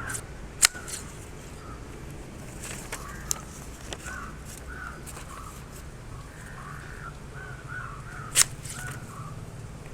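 Freshly sharpened grass shears snipping shut: a few sharp clicks, the loudest just under a second in and again near the end, with birds calling over and over in the background.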